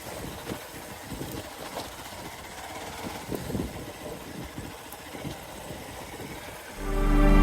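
Hero XPulse 200 Pro's single-cylinder engine running at low revs with an uneven low pulsing. Near the end, loud music cuts in.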